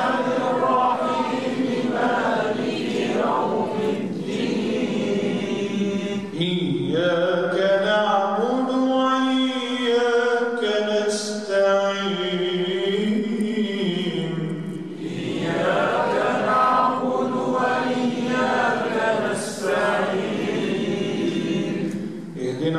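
A man reciting the Quran in the melodic style, holding long notes and ornamenting them with sliding runs of pitch, with short breaks about 6 and 15 seconds in.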